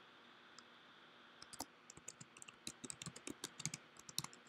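Computer keyboard typing, faint, a run of quick uneven key clicks starting about a second and a half in, after a short near-silent pause.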